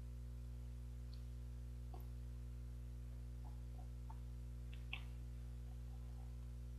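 Faint mouth sounds of eating an ice cream bar close to a lapel microphone: a few soft clicks and smacks, the clearest about five seconds in, over a steady low hum.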